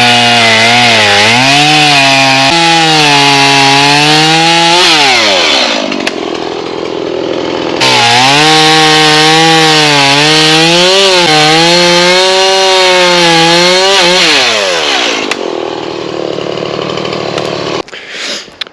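Two-stroke chainsaw revving high and cutting through wood, its pitch wavering and dipping as the chain bites. It drops back to idle about five seconds in, then revs up abruptly for a second cut of about six seconds before dropping back to idle near the end.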